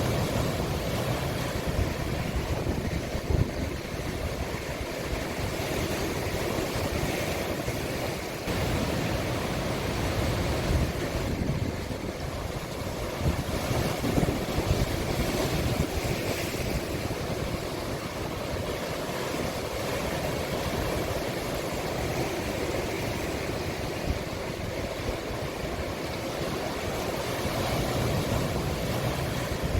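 Sea waves breaking and washing onto the shore of a small cove: a continuous surf noise that swells and eases gently.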